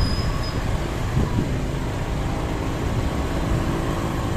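Vehicle engine running with steady low rumbling road noise; faint steady engine tones come in about a second and a half in.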